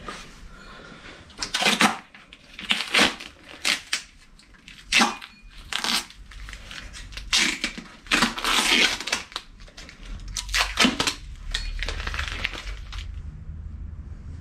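A series of short scrapes, clicks and rustles from hands and tools working on the cast motor pulley of a Bridgeport milling machine, with a few brief metallic rings among them. A low rumble comes in about ten seconds in.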